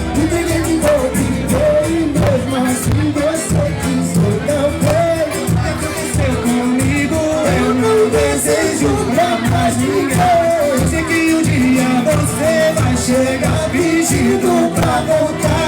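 Band music with steady percussion under a gliding melody line, with singing.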